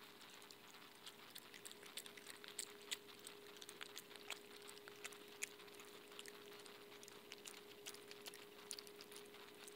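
Pet opossum chewing and smacking its food close up: a quick, irregular run of soft clicks starting about a second in. A faint steady hum lies underneath.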